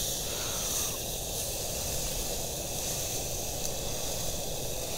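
Portable gas grill hissing steadily as sausages cook on its grill plate.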